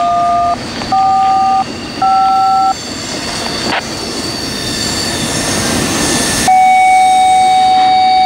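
Touch-tone beeps on a railroad radio scanner: three short two-note beeps about a second apart, then a long steady beep near the end. Underneath runs the steady rolling noise of a Norfolk Southern double-stack container train passing.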